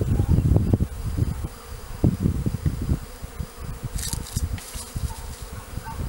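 Swarm of honeybees buzzing around a hive box, over an irregular, gusty low rumble, with a brief rustle about four seconds in.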